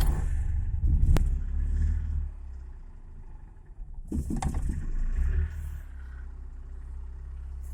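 Lada Oka's small two-cylinder petrol engine running just after a cold start: fast at first, dropping, picking up again briefly about four seconds in, then settling to a steady idle. A single sharp click sounds about a second in.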